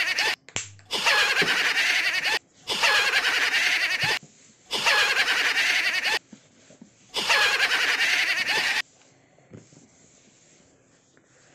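A laughing sound effect repeated in bursts of about a second and a half, five in a row with short gaps, each starting and stopping abruptly; after about nine seconds only faint rustling of hands on the cardboard box remains.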